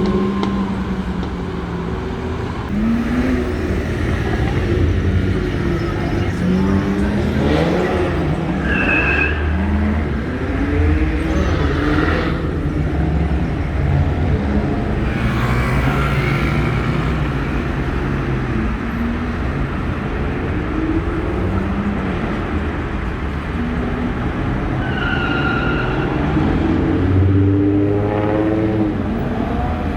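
Busy street traffic: vehicle engines revving and passing, their pitch rising and falling again and again, with two brief high-pitched tones about a third of the way in and near the end.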